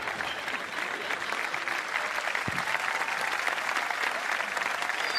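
Audience applauding, a dense wash of clapping that grows slowly louder.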